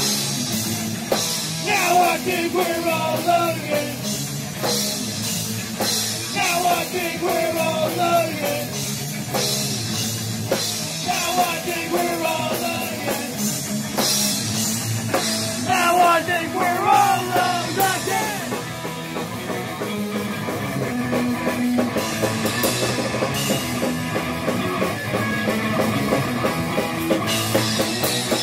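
Punk rock band playing live: electric guitars, bass and drum kit driving a fast steady beat, with sung vocal lines coming in phrases through the first two-thirds. The last third is instrumental.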